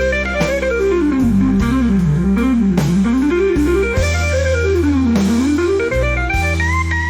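Instrumental AI-generated blues: a lead line of quick notes runs down and back up several times over sustained low bass notes.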